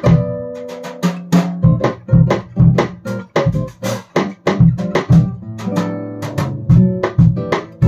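Acoustic guitar strumming chords of a samba tune, accompanied by a drum kit keeping a brisk beat with sharp stick hits.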